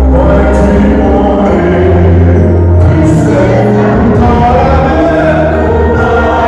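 Church congregation or choir singing a French hymn, with loud amplified accompaniment and a heavy bass line.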